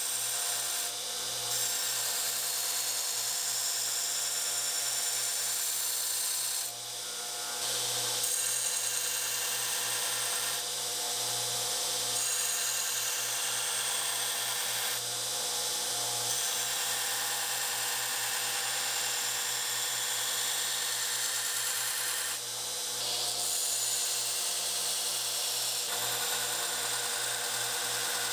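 Belt grinder running, its abrasive belt grinding the curved steel blade of a forged drawknife: a steady hiss of metal on the belt over the motor's hum, dipping briefly a few times.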